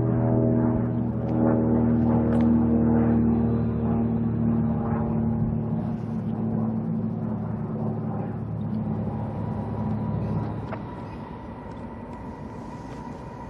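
BNSF diesel freight locomotives passing: a horn chord fades out over the first few seconds while the engines' deep drone carries on. About ten seconds in the drone drops away, leaving the quieter rolling noise of the train with a faint steady high tone.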